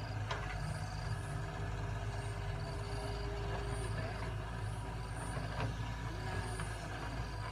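Wheeled excavator's diesel engine running steadily under load as it digs, with a higher steady whine for a few seconds in the middle and again near the end, and a couple of sharp knocks as the bucket works the dirt.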